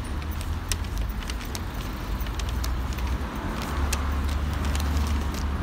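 Low rumble of street traffic, swelling from about three and a half seconds in as a vehicle passes, with scattered light clicks and jingles of metal leash clips and harness rings as two small dogs are walked on the pavement.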